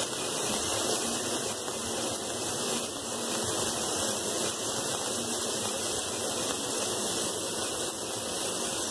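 T-bone steak sizzling steadily in hot avocado oil in a nonstick frying pan as it browns on its second side.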